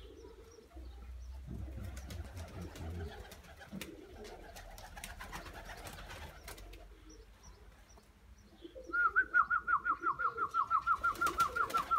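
Domestic pigeons cooing and shuffling about. About nine seconds in, a loud, rapid run of short, high whistled notes starts, about six a second, all on the same pitch.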